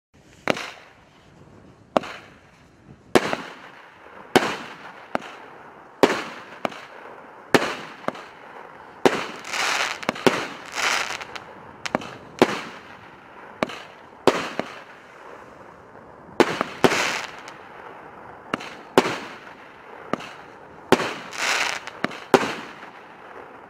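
Russian Firework EC583 "Shaitan salute" multi-shot firework battery firing shot after shot, a sharp bang roughly every second or so. Several bursts trail off in a longer hissing crackle.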